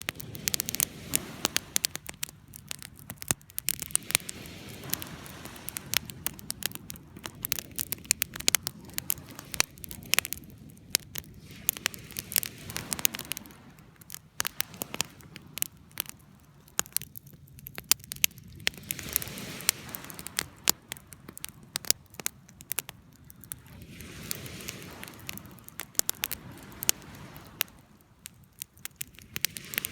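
Bonfire crackling: frequent sharp, irregular pops and snaps over a low rushing of the flames that swells and fades.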